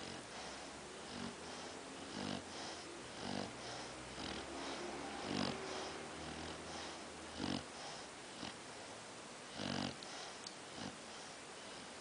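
A sleeping pet snoring: a string of short snoring breaths, about one a second, with a few louder snores among them.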